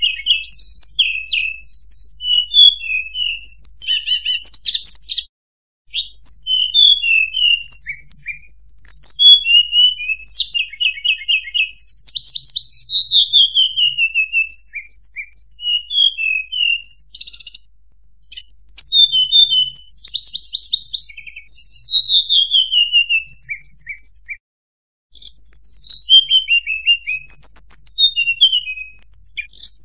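Recorded lure song of a hill blue flycatcher (tledekan gunung): fast runs of high-pitched sweeping whistles and trills that follow one another closely. The song breaks off briefly twice, about five seconds in and again about twenty-four seconds in.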